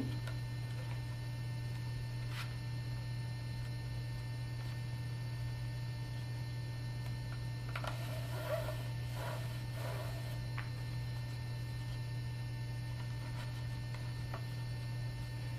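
Steady electrical mains hum, with faint rustling about halfway through as rope is threaded between a rope-tuned djembe's vertical ropes.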